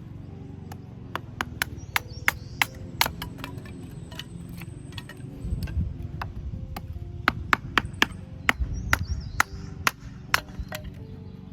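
Firewood being split: many sharp chopping strikes at an uneven pace, some much louder than others.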